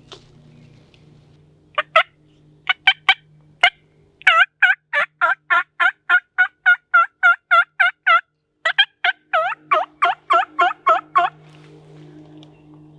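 Hand-operated turkey call run through a series of hen yelps: a few scattered notes, then two long runs of rapid yelps at about three a second, used to draw a reply from gobblers.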